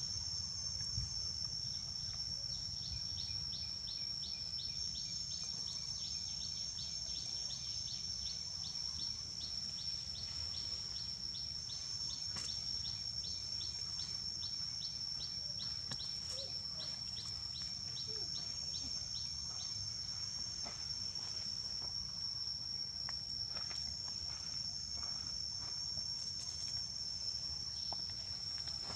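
Insects droning with a steady high-pitched whine, joined by a rapid ticking call of about three clicks a second from a couple of seconds in until about two-thirds through. A low rumble lies beneath.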